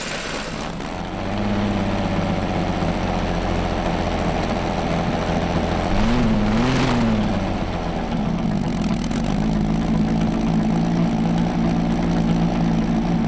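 Rolls-Royce Meteor 27-litre V12 petrol tank engine running on a test stand through short open exhaust stacks. It runs at a steady idle, with two quick blips of the throttle about six seconds in that send the revs up and back down.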